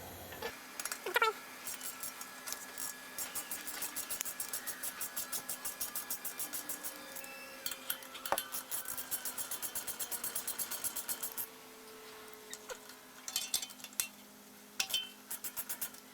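A ratchet clicking in a long fast even run as it backs out a brake caliper's 7 mm Allen bolt, then a few short bursts of clicks near the end.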